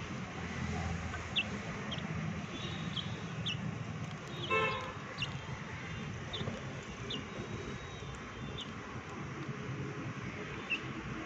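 Chickens pecking cooked rice from a steel bowl, with scattered short high ticks, over a steady hum of outdoor traffic noise. A short horn toot sounds about four and a half seconds in.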